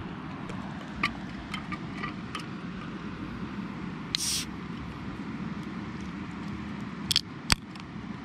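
Aluminium beer can being cracked open: a short fizzing hiss as the tab breaks the seal about halfway through, then a few sharp clicks of the tab near the end. Light clicks of handling the can come earlier, over a steady low background rush.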